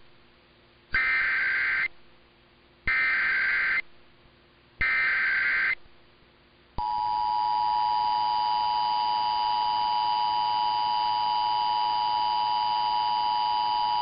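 Emergency Alert System test tones received over AM radio. First come three one-second bursts of SAME header data, each a harsh digital warble. About seven seconds in, the steady two-tone EAS attention signal starts and holds.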